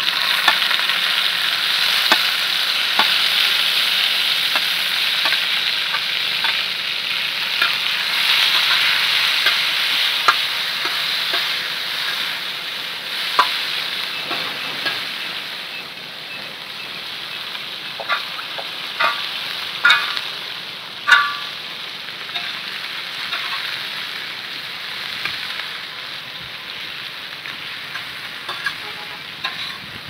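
Chopped tomatoes hitting a hot tawa with frying cumin seeds, setting off loud sizzling that starts suddenly and slowly dies down. Scattered sharp pops and crackles through it, thickest after the midpoint.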